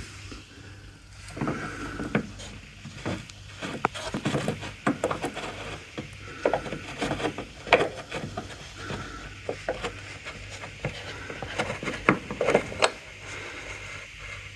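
Irregular clicks, knocks and short scrapes of a hand and tools working the oil drain plug loose on a riding mower's engine, through the access port in the wheel well, over a faint steady low hum.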